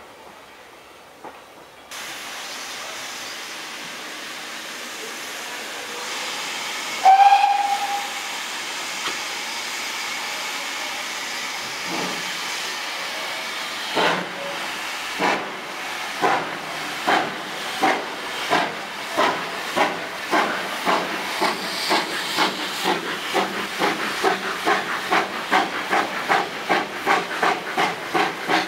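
Steam locomotive starting a train, heard from a carriage behind it: a steady hiss of steam, a short, loud whistle about seven seconds in, then the exhaust chuffs beginning about halfway through and quickening steadily as the train gathers speed.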